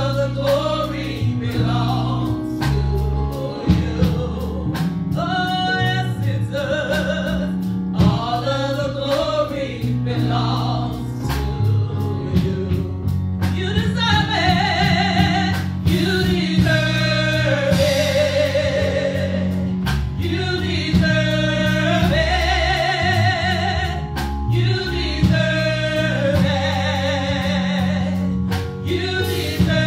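A woman singing a gospel song solo into a microphone, her long held notes wavering with vibrato, over an instrumental accompaniment of sustained chords and regular beats.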